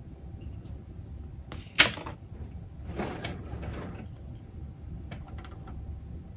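A single sharp snip a little under two seconds in, the sound of wire cutters trimming the end of a battery lead. It is followed by soft rustling and a few light clicks as the wire and heat-shrink tubing are handled, over a low steady hum.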